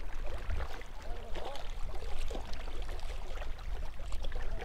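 Small wind-driven waves lapping and splashing against shoreline rocks, with wind rumbling on the microphone.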